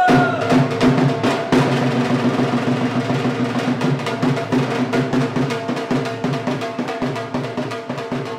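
Drum-led music: fast, dense drumming over steady held low tones, easing slightly in loudness toward the end.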